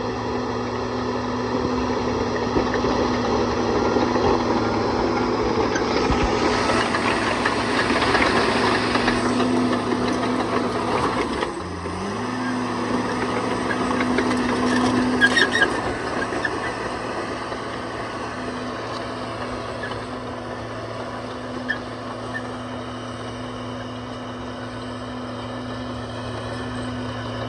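Bulldozer engine running steadily under load while pushing rock rubble, with heavier rattling and crunching about six to ten seconds in. The engine pitch sags briefly near the middle and then recovers, and a few sharp clanks follow shortly after.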